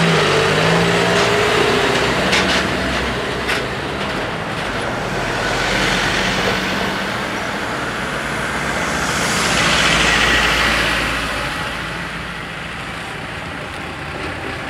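Road traffic crossing a level crossing close by: a tractor, a pickup and lorries drive over the rails, with engines running and tyres rumbling. There are a couple of sharp knocks a few seconds in, and the noise is loudest about ten seconds in as a vehicle passes nearest.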